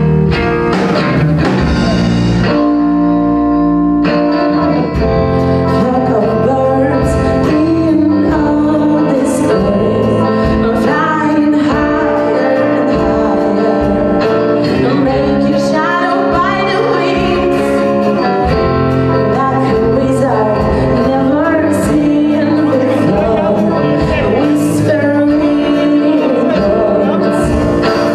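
Live rock band playing: female lead vocals over two electric guitars, bass guitar and drum kit. About two seconds in the cymbals drop out for a couple of seconds, leaving held chords ringing, before the full band comes back in.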